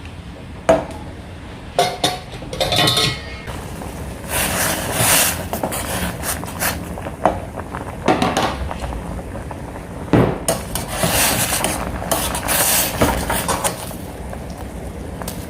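A utensil scraping, stirring and knocking against a pan, in irregular strokes with sharp clinks.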